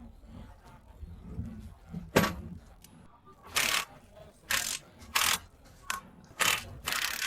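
Hand work on an e-rickshaw under repair: a sharp knock about two seconds in, then a run of short scraping or hissing strokes, each under half a second and coming roughly every half to one second.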